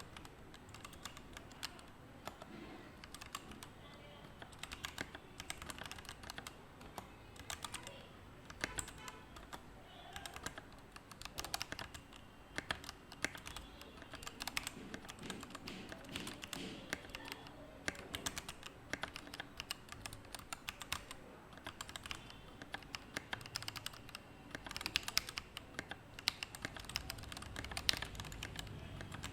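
Typing on a DZ60-based 60% mechanical keyboard: an irregular, continuous run of keystroke clicks over a steady low background noise.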